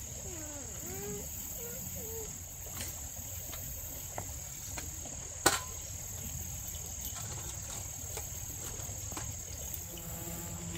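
Steady high-pitched trilling of insects in the woods. About five and a half seconds in, a single sharp knock as a portable gas camp stove is set down on bricks.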